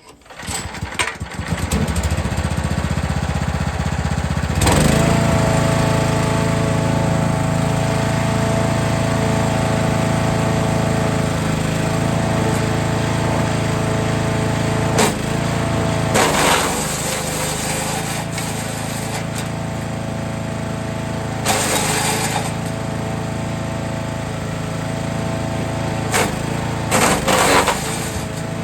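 Forest Master FM8DD wood chipper: its engine comes up to speed over the first couple of seconds and then runs steadily. Branches are fed through it, with loud bursts of chipping several times.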